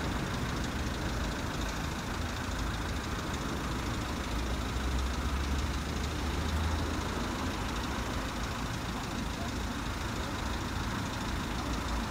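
Steady outdoor background noise under a low engine rumble that swells for a couple of seconds about five seconds in.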